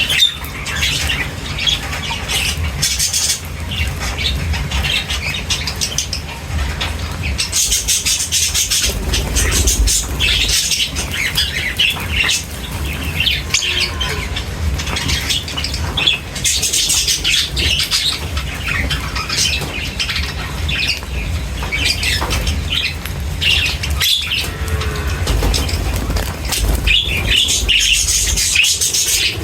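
A flock of small birds chirping and fluttering their wings, with many short high chirps throughout over a steady low rumble.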